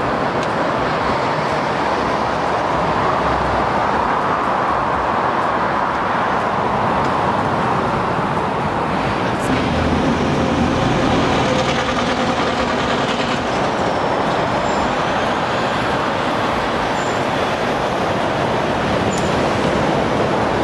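A steady, even din of street traffic noise with no distinct events.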